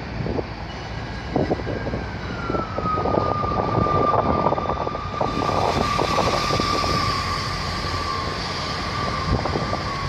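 GWR Intercity Express Train running slowly past: a steady rumble with short knocks of the wheels over the track, and a high whine that falls slightly in pitch about two seconds in, then holds steady.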